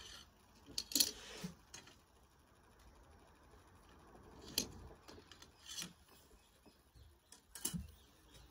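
A few scattered light knocks and clinks, with a short scraping rustle about a second in, from code 5 lead sheet capping being handled, knocked up and fitted onto coping stones.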